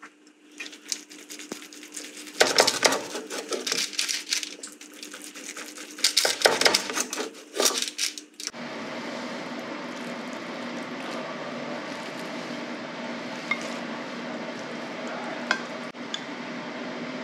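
A knife slicing through a meatloaf, the blade scraping and knocking against the parchment-lined sheet pan in several loud strokes. About eight and a half seconds in, this gives way to a steady hum with a couple of faint clinks of a spoon in a glass measuring cup.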